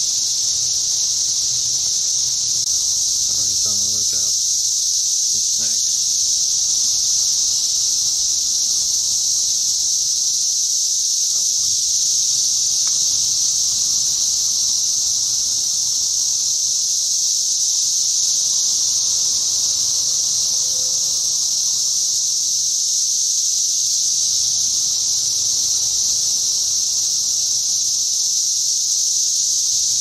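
Brood X periodical cicadas singing in full chorus: a loud, steady, unbroken high-pitched drone.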